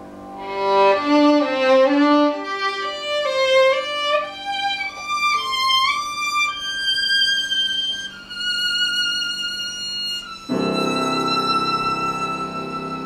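Solo violin playing a slow melody, climbing note by note to a long held high note. About ten and a half seconds in, the piano comes in underneath with fuller low accompaniment while the violin holds on.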